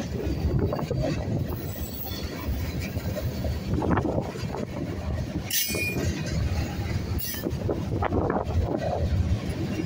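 Freight cars (tank cars and loaded flatcars) rolling past at trackside: a steady rumble of steel wheels on rail with irregular clacks and knocks as the trucks pass, and a brief high squeal about halfway through.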